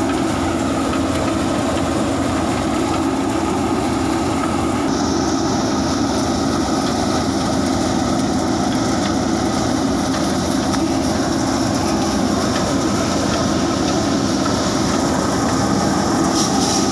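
Swaraj 843 XM tractor's diesel engine running steadily, driving a tractor-mounted harvester-thresher as it works a black gram crop. A steady higher hiss joins in about five seconds in.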